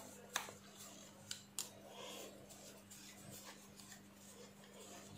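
Faint clicks and light scraping of a screwdriver tightening a small screw into a hair trimmer's metal blade head, three sharp clicks in the first two seconds, over a faint steady hum.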